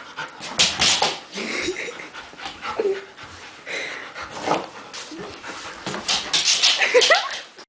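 A German shepherd panting and whimpering, with a few short rising whines near the end.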